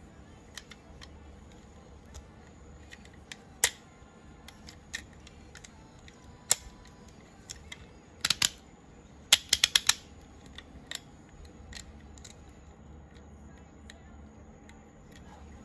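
Hard plastic parts of a Bandai DX King-Ohger combining robot toy being handled and snapped together: scattered sharp clicks, a loud one a few seconds in and another a few seconds later, then a quick run of about five clicks near the middle.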